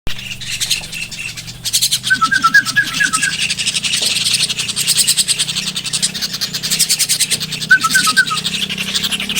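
Birds chirping over a dense, rapid high-pitched chatter, with two quick runs of clear whistled notes, one about two seconds in and one near the end.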